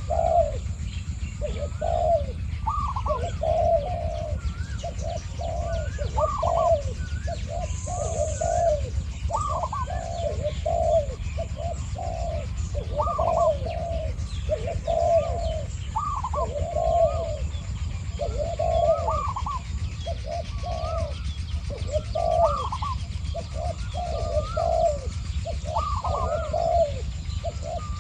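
Spotted doves cooing back and forth without a break, a wild male answering a caged decoy dove with repeated, overlapping coo phrases, the exchange of rival territorial calling. A few small bird chirps sound higher up, over a steady low rumble.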